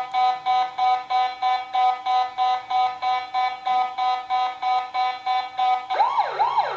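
HB-MFR wireless alarm receiver sounding its alarm after a detector is triggered: a loud electronic beeping that pulses about four times a second, then switches near the end to a wailing siren tone that sweeps up and down. Each of its four zones has its own tone.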